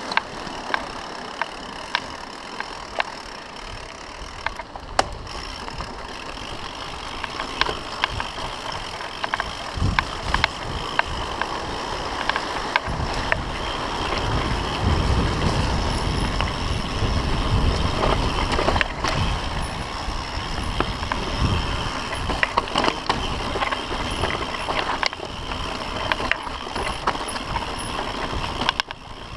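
Mountain bike rolling fast down a rocky dirt singletrack: tyres on dirt and loose stone, with frequent sharp rattles and knocks from the bike over rough ground. Wind buffets the microphone as a low rumble, heaviest through the middle.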